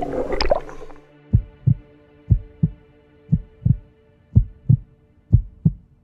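Underwater rushing and bubbling for about the first second, then a heartbeat sound effect takes over: a double thump about once a second over a steady low drone.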